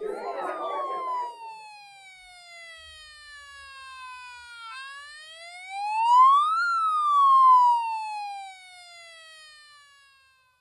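A siren-like pitched tone glides slowly downward. About five seconds in it rises and then falls away again, loudest at the top of that second sweep.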